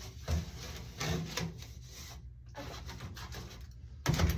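Rubbing and scraping handling noise with a few dull knocks, the loudest near the end, as a dryer hose is worked onto its fitting.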